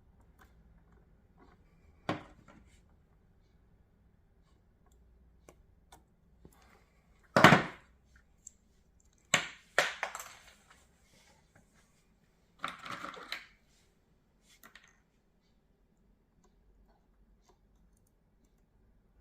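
Hand-tool and handling noises while joining headlight wires with heat-shrink butt connectors: a few scattered clicks and knocks, the loudest about seven seconds in, and a short scraping burst a little later.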